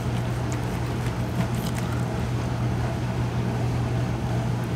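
Dishwasher running with a steady low hum, and a few faint clicks of a knife and tongs against a cutting board.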